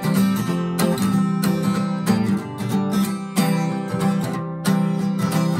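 Acoustic guitar strummed in a steady rhythm, about two strums a second, playing the lead-in to a sing-along song.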